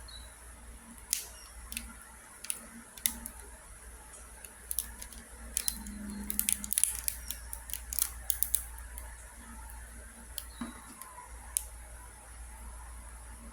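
Plastic links of a Wacky Tracks snap-and-click fidget chain clicking as it is bent and twisted: scattered sharp clicks, with a quick flurry of them around the middle.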